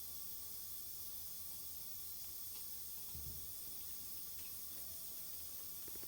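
Steady high hiss, like running water or a fan, with one soft low bump about three seconds in and a few faint ticks.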